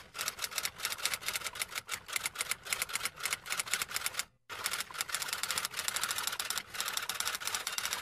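Rapid typing: a fast, uneven patter of key clicks, many a second, in two runs broken by a brief pause about four and a half seconds in.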